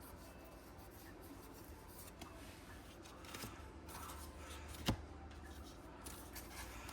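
Faint rustle and slide of Pokémon trading cards being handled and sorted by hand, with one sharp click about five seconds in.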